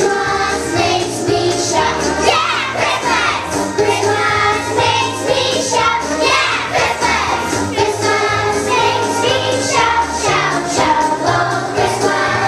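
A group of young children singing together over instrumental accompaniment.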